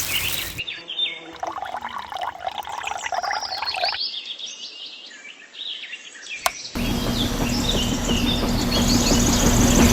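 Birds chirping for the first several seconds, then a sharp click and an abrupt change to a steady mechanical noise with a low hum.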